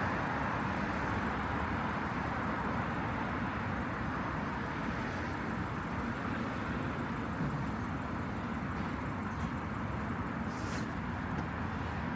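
Steady road traffic noise from passing cars, with a few light clicks near the end.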